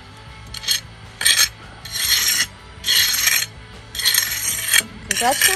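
Hand trowel scraping over the wet surface of freshly poured concrete in about six back-and-forth strokes, roughly one a second, smoothing the slab.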